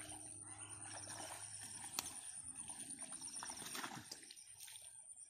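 Faint water splashing and rustling of weeds as a hooked snakehead is reeled in through the weedy pond to the bank. A steady high-pitched whine runs underneath, with a short chirping trill twice and one sharp click about two seconds in.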